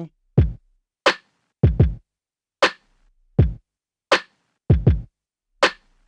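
Drum-machine beat of kick and snare playing back from a Maschine+ at about 80 BPM, with nothing else in the pattern. The snare lands about every second and a half, and the kick falls between, sometimes as a quick double hit.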